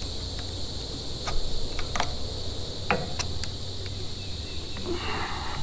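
Steady high-pitched drone of insects, with a few light clicks and taps scattered through it.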